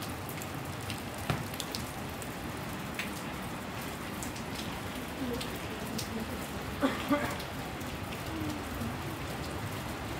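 Steady rain falling, a soft even hiss with scattered sharp taps of single drops close by, a few louder taps bunched about seven seconds in.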